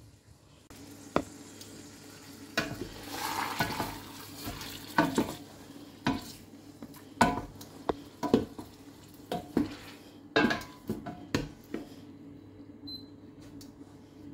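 A metal cooking utensil knocking and scraping in a cooking pot, about a dozen sharp clinks spread unevenly through the stretch, over a steady low hum.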